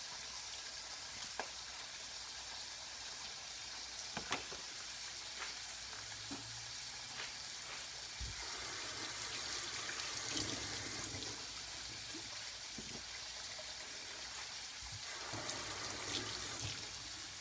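Pork chops searing in oil in a frying pan, a steady sizzle. About eight seconds in, a kitchen tap runs for about three seconds as an onion is rinsed, and runs again briefly near the end, with a few light knocks in between.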